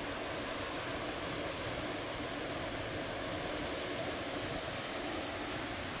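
Ocean surf breaking and washing in, a steady rush of noise.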